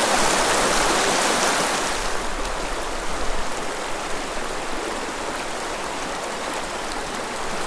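Small rocky creek running shallow over stones in a riffle: a steady rush of water, a little louder and brighter for the first two seconds, then slightly softer.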